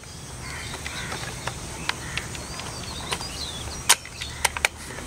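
Sharp, irregular clicks and knocks of a chipping bit being pushed and turned into the SDS chuck of an electric rotary hammer drill, with the loudest click a little before four seconds in. Birds chirp faintly in the background.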